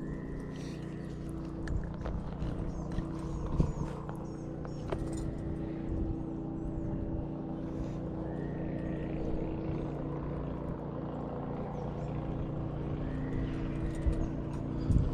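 Steady motor hum at an even pitch, with a few faint bird chirps and short whistles over it.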